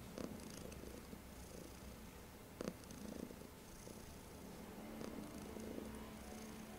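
Tabby-and-white domestic cat purring steadily while being stroked on a lap, with one brief sharp click about two and a half seconds in.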